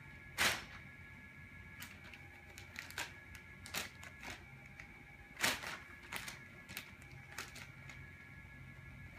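Thin plastic bag crinkling and crackling in irregular bursts as two cats paw at it and stand on it. The loudest crackles come about half a second in and about five and a half seconds in.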